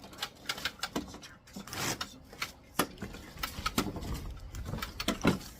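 Handling noises while working on a lawn mower: a run of irregular knocks and clicks, with a brief scraping rustle about two seconds in.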